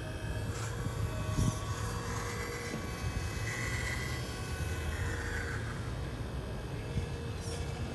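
Electric motors and gearing of a 1/14-scale RC Volvo EC360 excavator whirring as the boom lifts and the upper body slews round. A higher whine comes in for a couple of seconds midway, and again briefly a little later.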